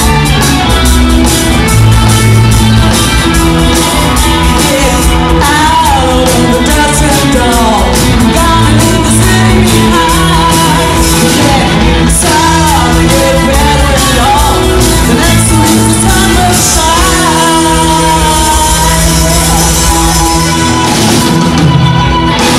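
Live rock band playing loud with electric guitars and drums, a singer's voice over the top.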